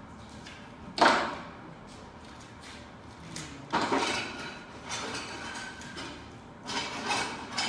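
One sharp knock about a second in, followed by several shorter bursts of clatter and handling noise on a workbench.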